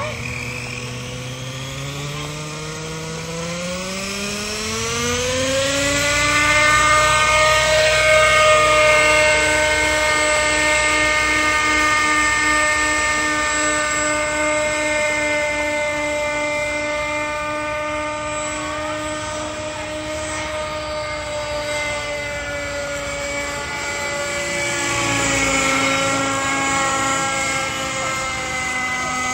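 Century Hawk Pro radio-controlled model helicopter spooling up: its pitch climbs over the first six seconds or so, then holds steady as it flies, with a brief dip about twenty-five seconds in.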